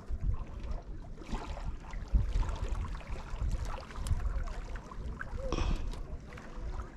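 Gusty wind rumbling on the microphone with lake water lapping, and a couple of brief rustling bursts.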